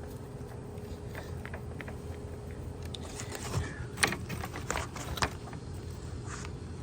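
Small sharp clicks and light rattles of wires and connectors being handled while a 3-in-1 compressor start relay is wired up, most of them between about three and five and a half seconds in, over a steady low hum.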